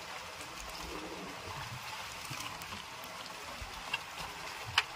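Steady wash of sea water around a floating bamboo fishing platform, with a short click about four seconds in and a louder sharp click near the end.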